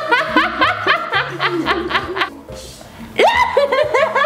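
A woman laughing hard while being tickled: quick runs of short laughs, a brief lull about two seconds in, then a fresh burst that starts with a high rising cry.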